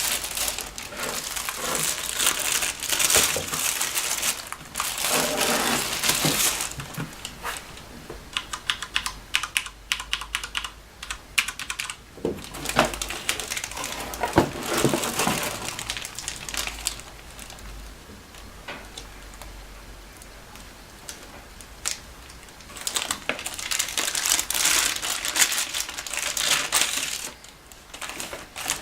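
Keys of a new Sanwa Supply SKB-MK2BK mechanical keyboard clicking in quick runs, mixed with stretches of plastic packaging rustling as it is unpacked.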